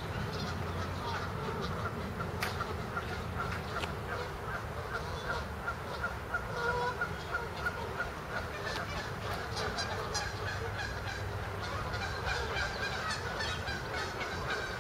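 Waterfowl calling near the water: a continuous stream of honks and calls, with finer high calls joining about halfway through.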